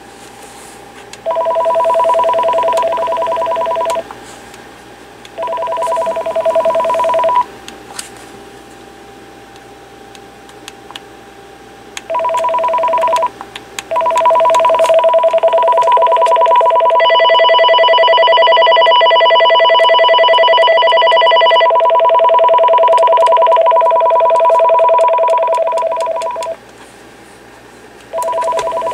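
Clarity C4230 amplified cordless phone ringer sounding an electronic two-tone ring. It comes in bursts of two or three seconds, then rings steadily for about twelve seconds, with a higher, brighter set of tones joining in the middle.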